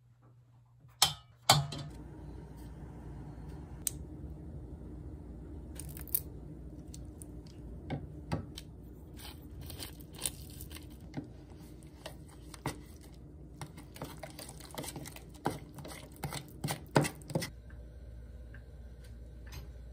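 Kitchen cooking sounds: sharp clinks and taps of an egg, spoon and utensils against a steel pot and a plastic measuring cup, scattered irregularly over a steady low hum. Two loud clicks come about a second in, and a quick cluster of taps comes near the end.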